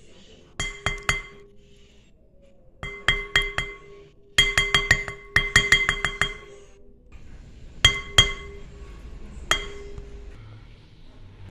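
A spoon tapping against the rim of a glass mixing bowl, knocking butter off into the eggs; each tap sets the bowl ringing with a bright clink. The taps come in quick groups, a fast run of them in the middle, then two taps and a last single one near the end.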